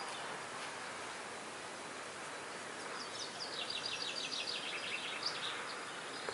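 Quiet outdoor ambience, a steady hiss; about three seconds in, a bird gives a rapid trill of high chirps lasting about two seconds.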